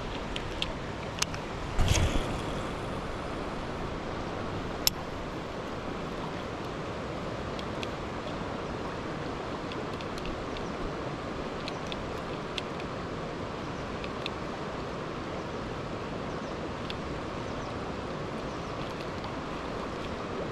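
Steady rush of river water, with a few sharp clicks and a louder knock about two seconds in.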